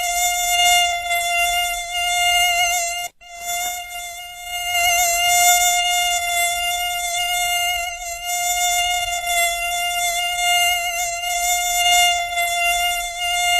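Mosquito wing buzz: a steady, high-pitched whine with a slight waver, which cuts out for a moment about three seconds in.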